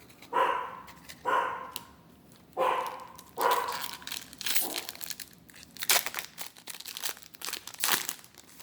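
A dog barking about four times in the first half, then crinkling of foil booster-pack wrappers being handled.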